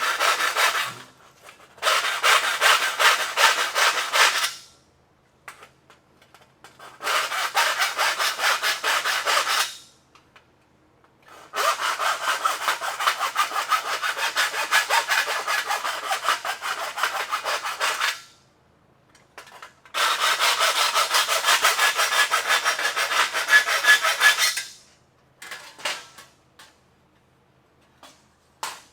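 Hand file rasping back and forth in a slot cut in the steel trunk lid, dressing the latch slot to size after a body saw cut. The filing comes in about five runs of rapid strokes, the longest about six seconds, with short pauses between.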